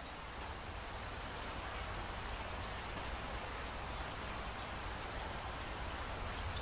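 Steady rain, slowly growing louder as it fades in.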